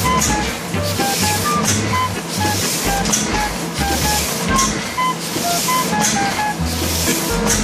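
A sheet-fed die-cutting press running through sticker-label sheets, with a rush of air about every one and a half seconds as each sheet cycles through. Background music with a melody of short notes plays over it.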